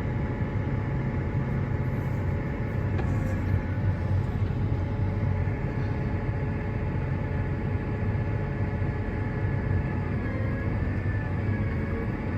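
Harvest machinery running steadily: a deep engine hum with several steady whining tones over it.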